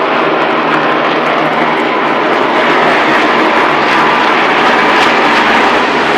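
A field of NASCAR Cup stock cars' V8 engines running at full throttle on a green-flag lap. It makes a steady, loud, dense drone with no breaks, growing a little louder toward the end as the pack comes round.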